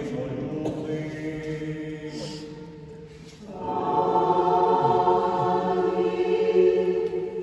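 Choir singing a slow chant in long held notes, swelling louder about three and a half seconds in.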